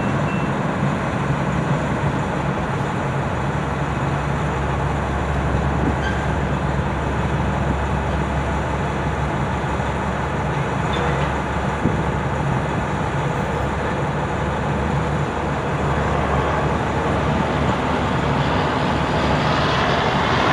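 KLW NZE15B genset switcher locomotive idling steadily with a low diesel hum. Over the last few seconds a louder rushing noise builds up over it.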